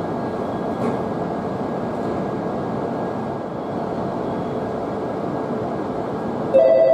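E5-series Shinkansen standing at the platform with a steady rushing drone. Near the end the platform's electronic departure bell starts ringing loudly in two steady tones, the signal that the doors are about to close and the train to leave.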